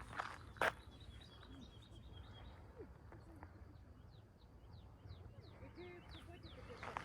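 Faint birdsong: a quick trill of repeated high notes, then a series of short, downward-sweeping high notes. A single sharp tap sounds about half a second in.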